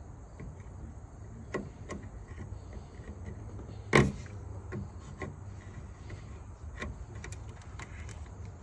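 Spring-type radiator hose clamp being squeezed open with hose clamp pliers and slid back along the hose: a few light metallic clicks and one sharp, louder snap about four seconds in, over a low steady rumble.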